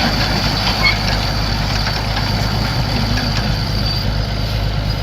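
Massey-Harris Super 101 tractor engine running steadily with a New Idea T-6 square baler working behind it.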